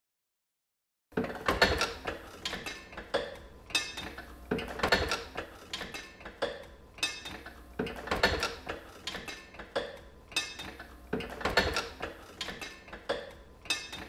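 Platen letterpress running, its flywheel-driven mechanism clanking and clicking in a steady cycle of about one impression every second and a half. It starts about a second in.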